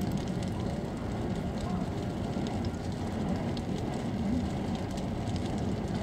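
A large wooden temple structure burning as a huge bonfire: a steady low rumble of flames with scattered crackles and pops.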